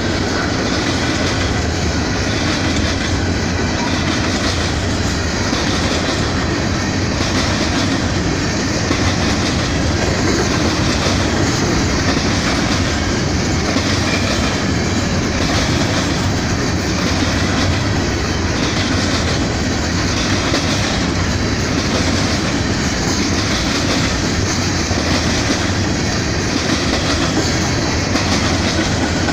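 Freight train cars rolling past, their wheels clacking over the rail joints in a steady, regular rhythm, with no horn sounding.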